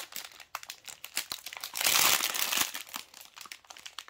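Clear plastic wrapping around a bundle of small bags of diamond-painting drills crinkling as it is handled, in scattered crackles with a louder, denser rustle about two seconds in.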